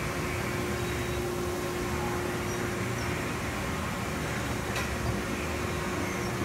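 Car-bottom heat-treating furnace car being driven into the furnace: a steady mechanical hum with a whine that stops about four and a half seconds in as the car comes home, then a light click.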